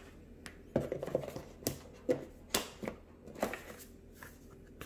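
A cardboard box and its paper card being handled: a string of light taps, knocks and scuffs of paperboard, spread over about three seconds.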